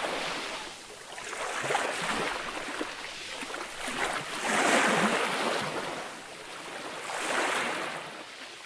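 A rushing noise that swells and fades about every two to three seconds, dying away near the end.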